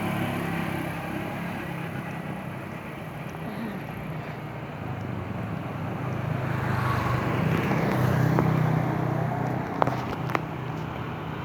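A motor vehicle's engine running steadily among outdoor street noise, growing louder around the middle, with two sharp clicks near the end.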